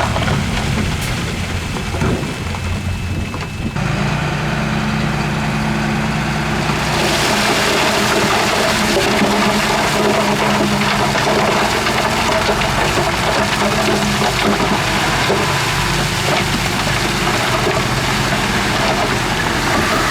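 Heavy diesel earthmoving machinery running, its engine note changing about four seconds in, with a broad rushing, rumbling noise that grows louder about seven seconds in.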